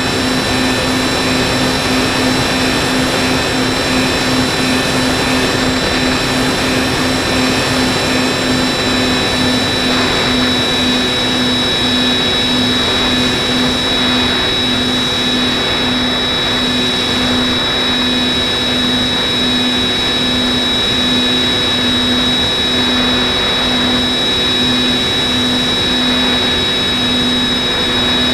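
Motor and propeller of an FPV model aircraft running steadily in flight, picked up by its onboard camera, over a constant rush of air. A steady high whine runs above a lower tone that beats evenly.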